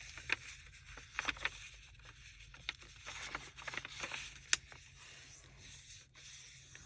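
Paper pieces being handled and shifted on a work surface: scattered light scrapes, rustles and taps, the sharpest about four and a half seconds in.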